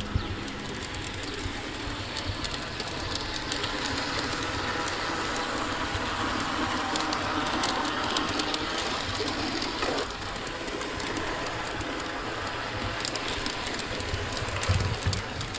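G-scale model diesel locomotive running on garden railway track: a steady whirring of motor and gears with light clicking of wheels over the rails, a little louder as it passes close by around the middle.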